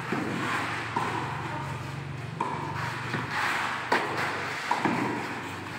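Tennis rally: a string of sharp tennis-ball strikes and bounces about a second apart. Each pop carries a short ping and echoes in the large indoor hall, over a steady low hum.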